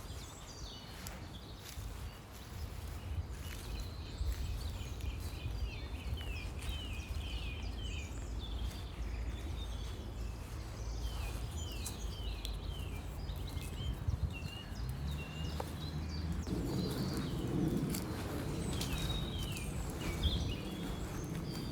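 Birds singing, with many short downward-sliding chirps in quick runs, over a steady low rumble that grows fuller about three-quarters of the way through.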